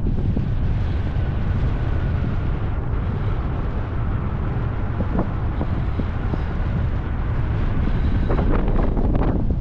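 Steady rush of wind over the microphone from the airflow of a paraglider in flight, with a few faint brief clicks.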